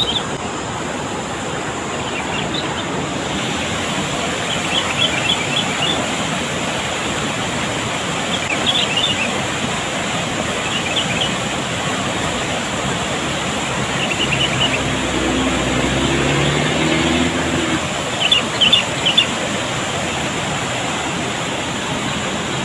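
Steady rushing of a fast, swollen river, with short bird chirps every few seconds and a low hum for a few seconds about two-thirds of the way through.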